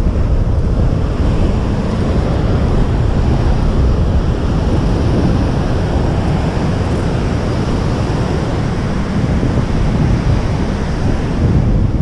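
Ocean surf washing and breaking against rocks, with wind buffeting the microphone: a loud, steady rushing noise.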